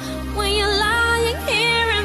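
Background music: a high, wavering melody over steady bass notes.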